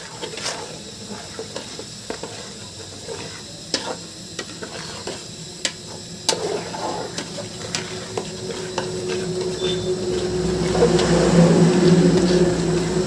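A spoon stirring and scraping in a pan of frying curry masala, with clinks and knocks over a steady sizzle. About halfway through, a steady motor hum comes in and grows louder, loudest near the end.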